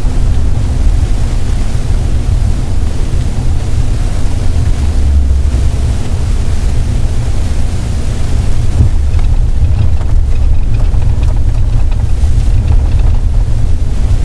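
Engine and road noise inside a moving vehicle's cab at highway speed: a steady low rumble.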